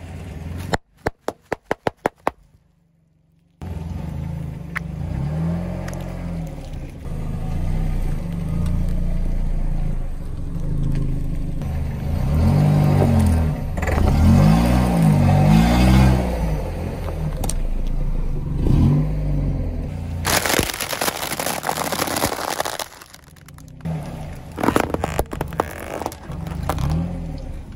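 A car tyre rolling slowly over and crushing a series of plastic objects (air-filled packing cushions, a stacking-ring toy, drinking straws), with crackling and scraping, under electronic background music with a heavy sliding bass. A quick run of sharp clicks comes about a second in, and a loud burst of crackling noise comes about twenty seconds in.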